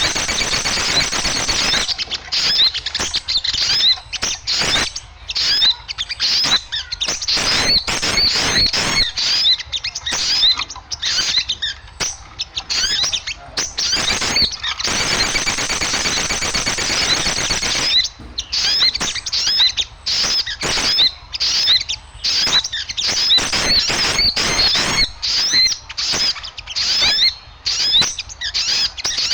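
A flock of small birds chattering noisily, with dense rapid high chirps and twitters broken by brief gaps. This is a bird-lure recording meant to draw small birds in.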